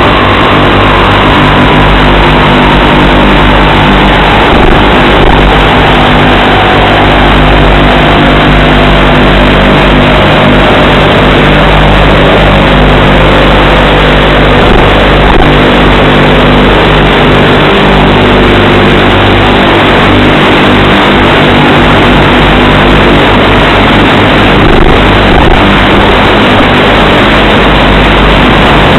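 Model airplane's motor and propeller droning steadily, with loud wind rush and hiss from the onboard camera's microphone. A faint whine slides slowly lower through the first two-thirds.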